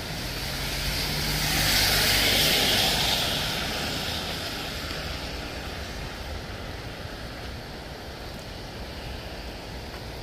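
A vehicle passing on the wet road: tyre hiss and a low engine hum swell to a peak about two seconds in, then fade slowly. It rises over a steady rush of rain and stream water.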